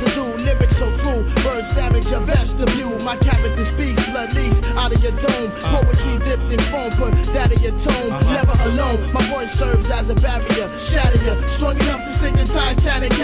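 Background music with heavy bass and a steady drum beat.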